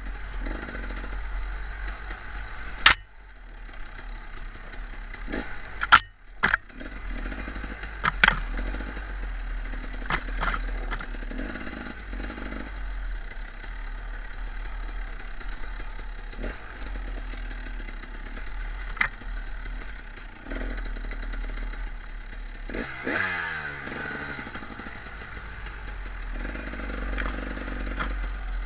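KTM dirt bike engine running on rough single-track, with several sharp knocks and clatter from the bike hitting bumps and brush. About two-thirds of the way through, the engine pitch drops as the revs fall.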